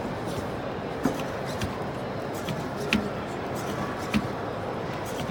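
Steady hall hubbub with a handful of sharp, irregularly spaced taps from the feet of a small Robotis Bioloid humanoid servo robot walking along the course line.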